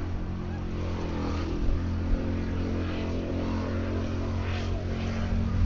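Formula Offroad buggy's engine running hard at steady revs as it drives through a river, over the rushing noise of water spray thrown up by the wheels.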